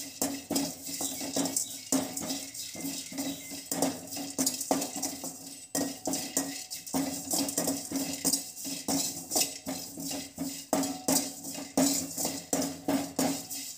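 A perforated metal ladle scraping and tapping against a metal pan in quick, irregular strokes. It is stirring curry leaves, cumin and pepper as they are sautéed.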